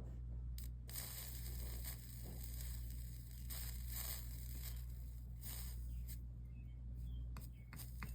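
Soldering iron melting solder into a fluxed joint on stained glass: a crackly sizzle with scattered clicks, strongest through the middle, over a steady low hum.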